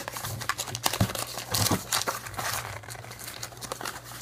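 Crinkling and tearing of plastic wrapping as a trading-card box or pack is opened by hand, in quick irregular rustles and crackles.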